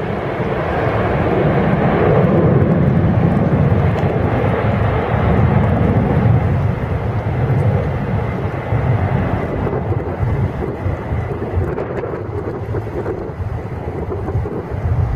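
Boeing 747-400 jet engines at takeoff thrust during the takeoff roll and rotation: a loud, steady deep rumble with a faint high whine over it.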